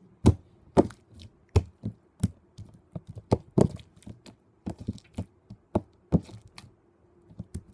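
Homemade glitter slime being kneaded and slapped by hand on a tabletop: an irregular string of short, sharp sticky smacks and pops, about two a second.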